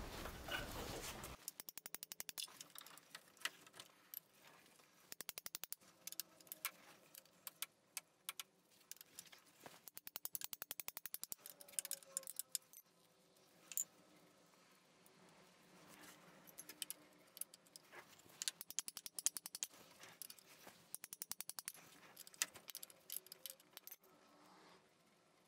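Ratchet wrench clicking in quick bursts, again and again, as the engine-mount bolts are turned loose.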